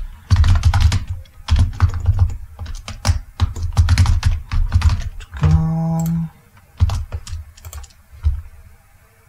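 Computer keyboard keys clicking in quick runs as an email address is typed, for about the first five seconds. A short steady hum comes about halfway, followed by a few scattered key presses and clicks.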